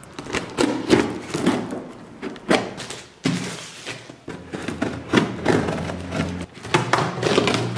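Scissors slitting the packing tape on a cardboard box: the tape crackles and tears, and the cardboard scrapes and knocks against the table again and again as the box is turned over.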